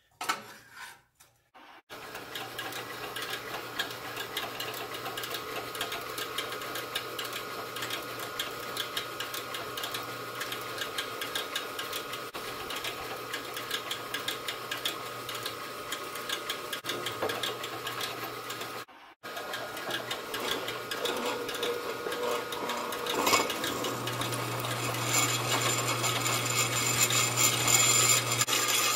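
A brief clatter of metal being handled, then a drill press running steadily, drilling a cross hole through a half-inch round arbor clamped in a V-block. The cutting grows louder and harsher over the last few seconds as the bit works into the metal.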